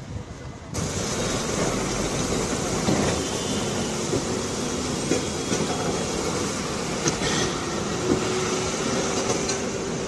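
Steady road noise of passing traffic, cutting in abruptly about a second in.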